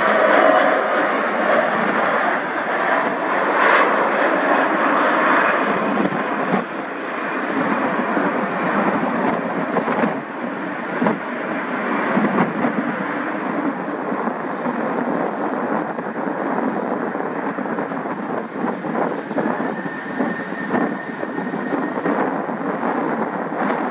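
Jet airliner's turbofan engines at takeoff thrust: a steady roar, with a high whine over it that fades after the first few seconds as the jet moves off and climbs away.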